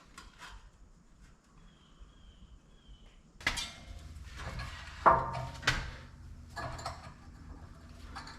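Sharp metallic clanks and knocks of sheet aluminium and shop tools being handled, starting about three and a half seconds in, some ringing briefly. A faint high chirp comes before them.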